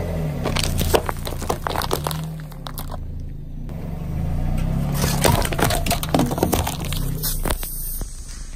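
A car tyre rolls over plastic cups of cotton candy, crushing them with a run of crackles. After a cut, aluminium soda cans crunch and burst under the tyre, and soda sprays out with a hiss near the end. The car's engine runs low underneath.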